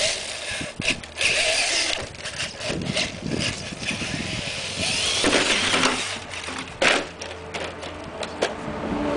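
Traxxas E-Maxx electric RC monster truck driving over grass, its motors and gears whirring in irregular bursts as the throttle is worked. A sharp knock about seven seconds in, as it hits the ramp and tips over.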